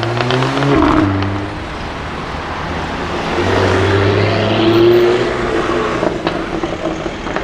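Jaguar F-Type V8 R's supercharged 5.0-litre V8 revving up in the first second with a quick run of exhaust crackles, dropping off, then swelling loud again midway as the car drives by.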